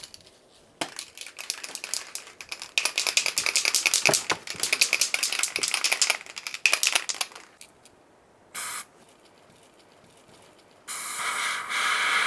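Aerosol can of primer: the mixing ball rattles quickly for several seconds as the can is shaken, then comes a brief spray about eight seconds in and a longer steady spray near the end.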